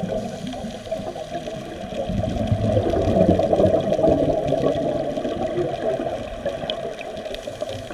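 Underwater gurgle of scuba divers' exhaled bubbles venting from their regulators. A long exhalation swells about two seconds in and eases off over the next few seconds.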